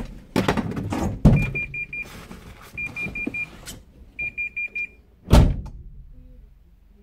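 Van door clunking open, then the van's warning chime sounding three quick runs of short high beeps, then a loud slam as the door is shut about five seconds in.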